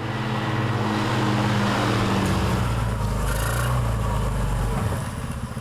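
Small petrol quad-bike engine of a microcar running at a steady pitch, with a deeper low rumble building in about two seconds in and dropping away near the end.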